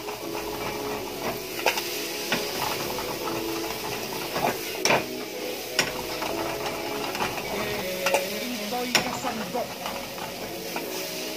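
Onion, garlic and tomato sautéing in a metal pan, with a utensil stirring and scraping against the pan. Several sharp clicks of the utensil on the pan stand out over a low sizzle.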